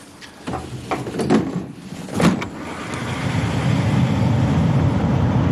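A few short knocks, then a wind tunnel's fan spinning up: rushing air grows louder over a second or two and then holds steady.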